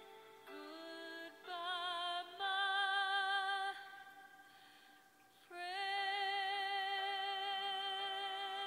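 Background music: a woman singing slow, long held notes with vibrato, softening for a moment about halfway and then taking up a new held note.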